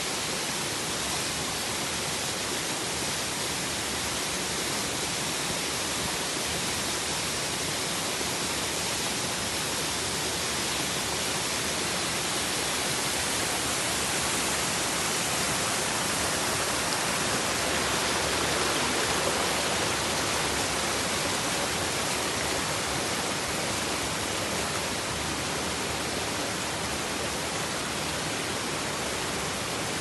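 Mountain waterfall and stream water rushing and splashing over rocks, a steady even hiss that grows a little louder about halfway through.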